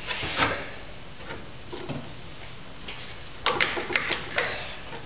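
Plastic coolant expansion tank being worked loose by hand: a short rustle near the start, then a quick run of sharp clicks and knocks about three and a half seconds in.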